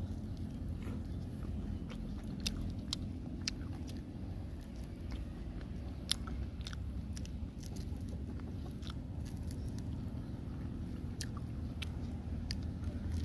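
A person chewing and biting grilled catfish close to the microphone, with irregular sharp clicks and smacks from the mouth.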